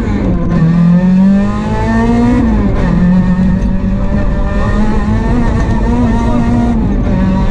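Rally car engine heard from inside the car, accelerating hard: the pitch climbs and drops sharply twice in the first few seconds as it shifts up, then holds fairly steady with small rises and dips under load.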